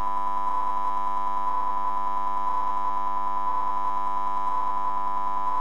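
Steady electronic hum made of several held tones, swelling slightly about once a second.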